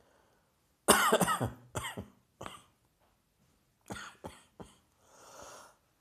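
A person coughing from dust in the air: a hard run of several coughs about a second in, a few weaker coughs later, and a breath near the end.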